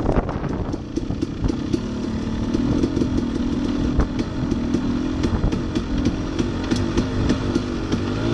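Dirt bike engine running at a steady, moderate speed while riding a rough, rocky trail, with frequent sharp ticks and knocks as the bike rattles over the ground.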